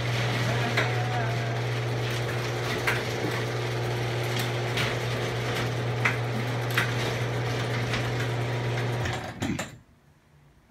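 Electric garage door opener running as the sectional garage door goes up: a steady motor hum with a click every second or so, stopping abruptly about nine seconds in.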